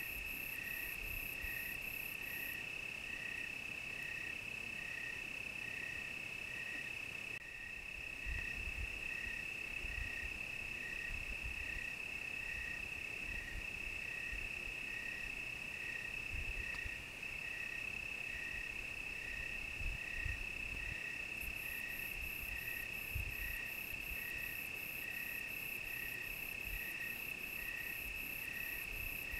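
Crickets singing together: a steady high trill, a slightly lower chirp repeating evenly about once a second, and a very high, fast pulsing chorus that stops a couple of seconds in and returns about two-thirds of the way through.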